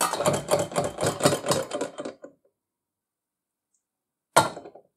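Cast-iron weight set down on the copper pan of an antique kitchen spring scale, followed by a quick rattling clatter for about two seconds as the pan settles. Near the end a second iron weight clanks down onto the first.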